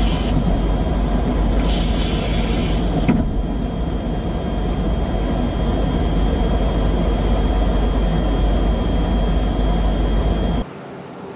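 Loud, steady in-flight noise of airflow and engines heard inside a KC-135 Stratotanker's boom operator pod while the refuelling boom is in contact, with a faint steady whistle and a brief hiss about two seconds in. It cuts off suddenly near the end to a much quieter hum.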